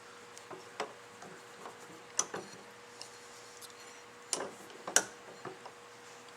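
Light metallic clicks and knocks, about eight at uneven intervals, as a fuel pump casting and tools are handled on a workbench, over a faint steady hum.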